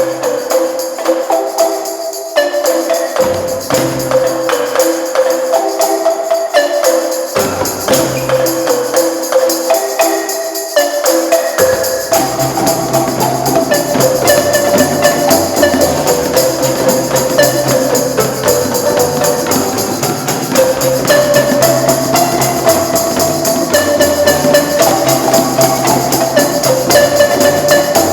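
Marimba ensemble playing a fast, lively tune of rapid mallet notes with a jingling tambourine-like percussion over it. Low bass marimba notes come in and drop out at first, then play steadily from about twelve seconds in.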